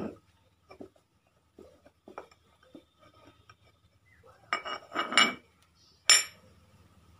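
Metal tools and parts clinking while being handled: a few light taps, then a quick cluster of louder metallic clanks about four and a half seconds in, and one sharp ringing clink about six seconds in.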